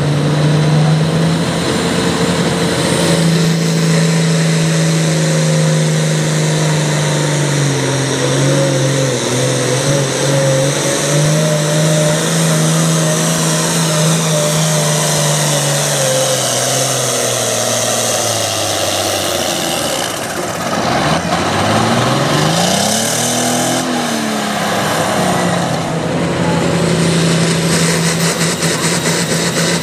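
Turbocharged diesel pro stock pulling tractors running flat out under load as they drag a pulling sled, with a loud, steady engine note. About two-thirds of the way through the pitch sinks as the engine slows, rises and falls once, and then holds steady again as a tractor pulls at full throttle.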